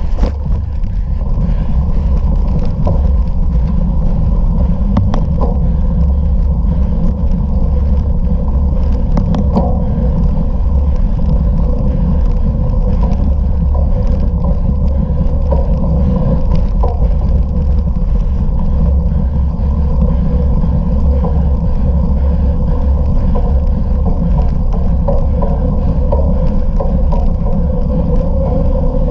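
Wind rushing over the microphone of a camera carried on a bicycle at race pace, with steady rolling noise and scattered clicks and knocks from riding over rough ground.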